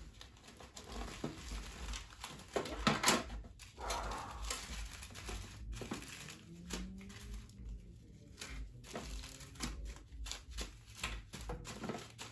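Small plastic accessories and bags being handled and set down: rustling with many light clicks and knocks.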